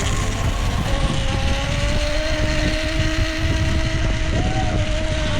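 Zipline trolley's pulley wheels running along the steel cable, making a steady whine that rises slightly as it picks up speed, over a heavy low rumble of wind.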